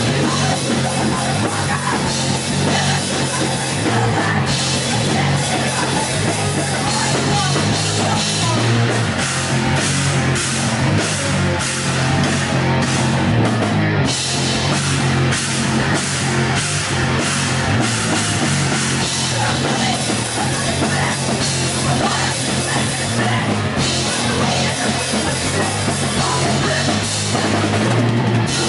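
Live heavy rock band playing loud and without a break: drum kit and guitar, with a singer on microphone.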